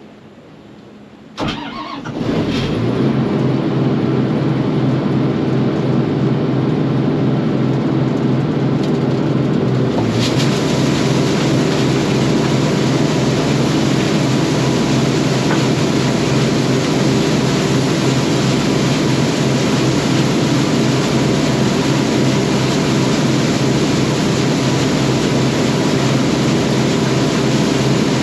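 Combine harvester engine starting about a second and a half in, then running loud and steady with a low hum. About ten seconds in a louder hiss joins it and holds.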